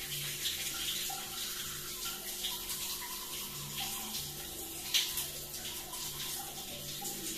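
Overhead shower spray running steadily, with a brief sharper sound about five seconds in.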